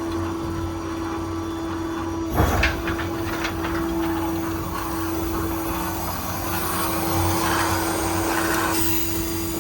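IMT 7500 service-truck crane running on its hydraulic system, a steady hydraulic whine over the low drone of the idling 6.7 Power Stroke diesel. About two and a half seconds in, a sharp metallic clunk followed by a second of rattling clicks.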